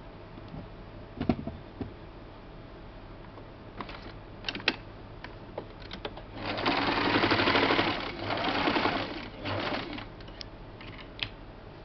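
Compact electric sewing machine stitching through fabric in two or three short runs, the longest about a second and a half, starting about six and a half seconds in. Scattered sharp clicks come before and after the runs.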